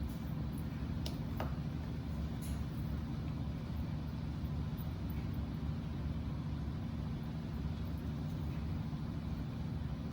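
Steady low mechanical hum, even throughout, with a couple of faint clicks about a second in.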